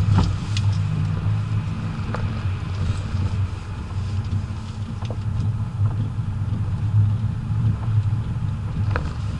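Interior sound of a BMW 535d's twin-turbo straight-six diesel pulling at speed, a steady low drone, with a few brief clicks scattered through it.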